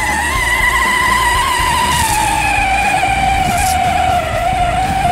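Whine of a 12-volt Kawasaki ride-on quad's electric motor and gearbox under drive, one steady high tone that slowly drops in pitch as the quad climbs a grassy hill.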